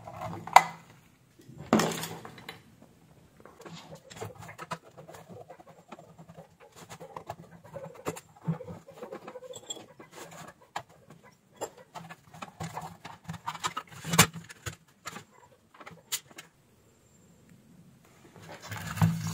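Handling noise as a metal-cased 24 V switch-mode power supply is taken apart on a workbench: test leads pulled from its terminal block and the metal cover taken off. Scattered clicks, taps and scrapes, with a few sharper knocks.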